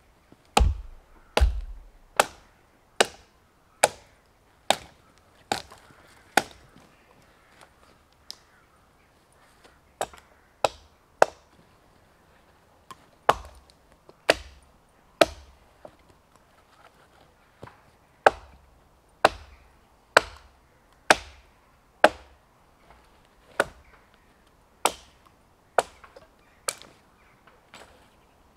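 Hultafors Hunter's Axe, a small 1.2 kg axe, chopping branches off a felled tree: sharp single blows about a second apart, in runs broken by a few short pauses.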